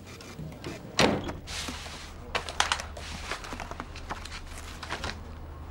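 A folder of papers put down on a desk with a thump about a second in, then paper rustling and pages flicking as the folder is opened and leafed through.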